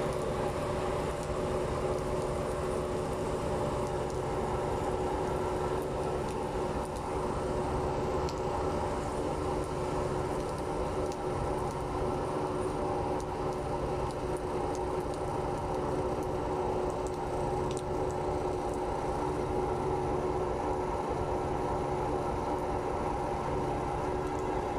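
A coach bus's diesel engine idling steadily with an even hum.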